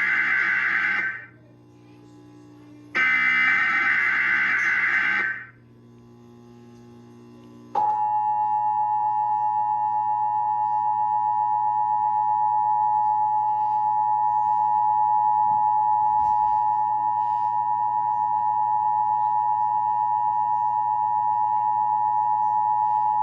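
Emergency Alert System tornado warning: a burst of warbling SAME digital header tones ends about a second in, and a second burst follows from about three to five seconds. About eight seconds in, the steady two-tone EAS attention signal begins, announcing the warning message to come.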